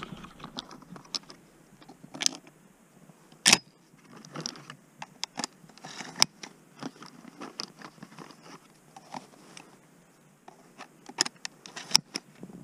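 Shotgun shells clinking and rattling as they are taken from a cardboard box and handled at a padded gun case: irregular sharp clicks, a few louder than the rest, with light rustling in between.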